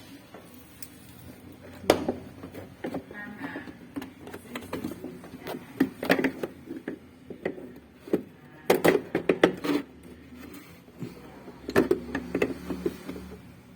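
Irregular clicks and knocks of tools and metal parts being handled while a washing machine is taken apart, in clusters, over a faint steady low hum.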